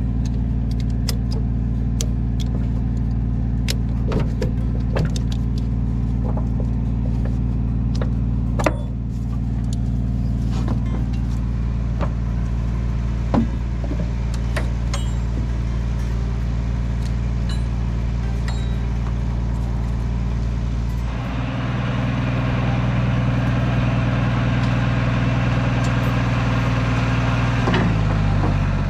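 Lull telehandler's engine running steadily, with scattered light clicks and taps. About 21 seconds in the engine speeds up and runs harder, then drops back down near the end.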